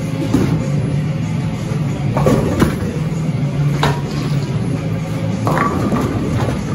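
Bowling alley clatter over a steady low hum: a handful of sharp knocks as a bowling ball is bowled down the lane, and pins crashing near the end.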